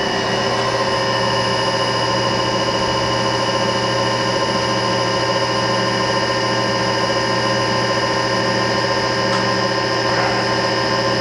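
Shigiya GU-30 universal cylindrical grinder running through an automatic plunge-grinding cycle, the wheel feeding steadily down into the part. It makes a steady machine whine made of several tones, with no change in level.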